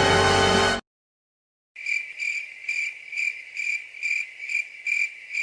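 Background music cutting off under a second in, then, after a moment of silence, a cricket chirping in a steady high trill that pulses about twice a second: a stock cricket-chirp sound effect.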